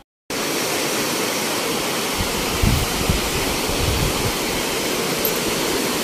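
Water pouring over a dam's spillway and cascading down a rock face into the pool below: a steady rushing noise that starts just after a brief gap at the beginning.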